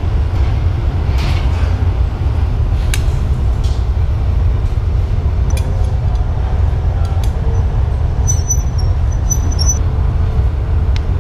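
Steady low roar of a glassblowing furnace and its burners, with a few light clicks and a brief high squeak from the blowpipe and tools being worked at the bench.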